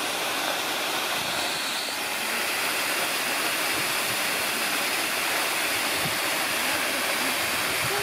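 Waterfall pouring down a rock wall and splashing into a shallow pool: a steady rush of falling water.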